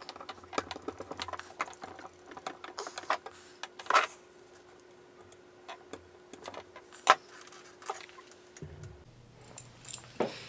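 Fingernails and a small plastic scraper picking and scraping at a sticker on the metal top plate of a Pioneer DJM-400 mixer: irregular small clicks and scratches, with two sharper clicks about 4 and 7 seconds in.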